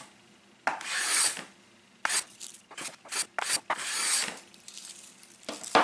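Tactix block plane with a freshly honed blade shaving pine. A long hissing stroke, a run of short quick strokes, then another long stroke, with a sharp knock near the end.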